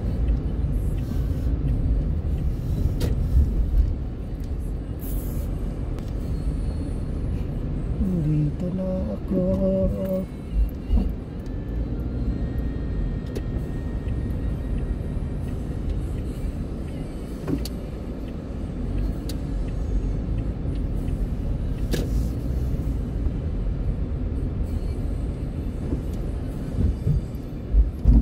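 Car interior road noise while driving: a steady low rumble of engine and tyres, with a short pitched sound about eight seconds in.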